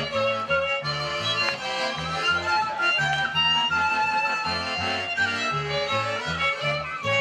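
Folk band playing an instrumental passage of Eastern Carpathian folk music, an accordion and fiddle carrying the melody over a steady beat of changing bass notes.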